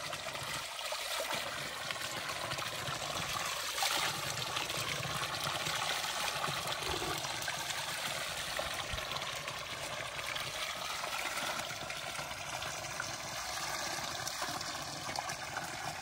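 Spring water pouring steadily from a pipe outlet and splashing into a shallow pool.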